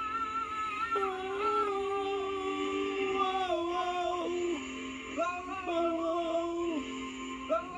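Music: a slow melody of long, slightly wavering held notes that step to a new pitch every second or so.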